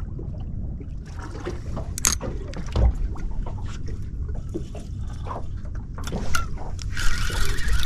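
Water lapping and sloshing against the hull of a drifting boat, with scattered small knocks and clicks from handling the fishing rod; a louder hiss of splashing water near the end.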